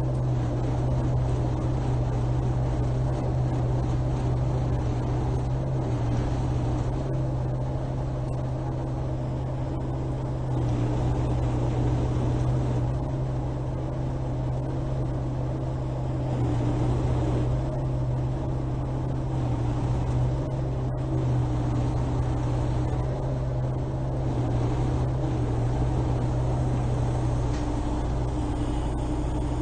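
Military wrecker truck's diesel engine running steadily while its crane boom drags and shifts a steel boat hull, the drone swelling slightly a few times.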